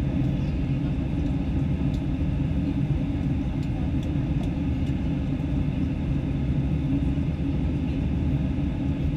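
Steady, deep cabin roar of an Airbus A318-111 in flight, its CFM56 turbofan engine and the airflow past the fuselage heard from a window seat by the wing.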